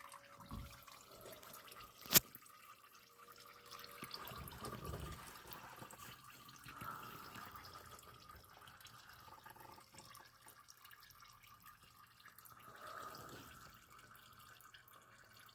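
Engine oil dripping and trickling into a drain pan, faint and uneven, with one sharp click about two seconds in.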